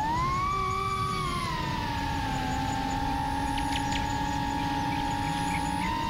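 FPV quadcopter's motors and propellers whining. The pitch rises over the first second as the throttle opens, drops back and holds steady, then steps up slightly near the end.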